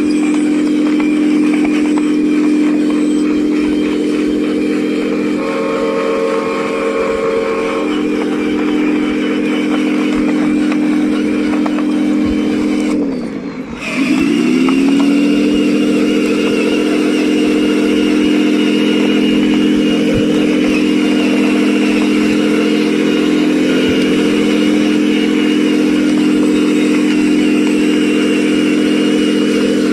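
Small electric motors of a toy excavator truck whining steadily. About halfway they wind down briefly, then spin back up to the same steady pitch.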